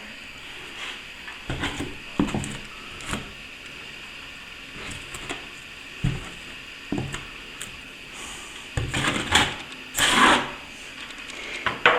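Scattered knocks and clicks of plastering tools and materials being handled, with two louder scraping bursts about three-quarters of the way through.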